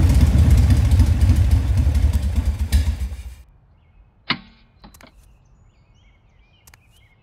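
Motorcycle engine running with a low, fast pulse, then switched off about three seconds in. After it stops come one sharp knock and a few light clicks.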